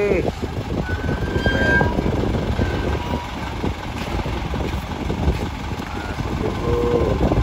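Diesel engine of an Isuzu light truck idling close by, a steady low rumble.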